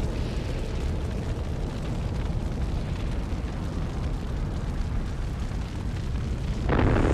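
Deep, steady rumble of a sound effect laid over footage of an erupting solar prominence. About two-thirds of a second before the end, a louder rushing surge comes in.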